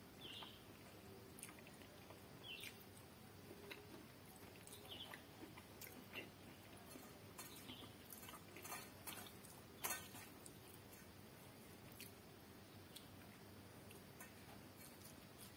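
Faint chewing and wet mouth clicks of a person eating rice and curry by hand, with scattered small clicks from fingers working the rice in a steel bowl. The loudest click comes about ten seconds in.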